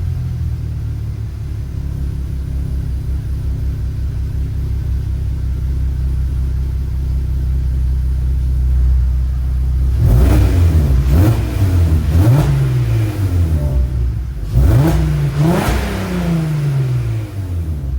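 Audi A3 3.2's VR6 engine and exhaust idling steadily, then blipped in a run of about six quick revs from about ten seconds in, each rising and dropping back toward idle.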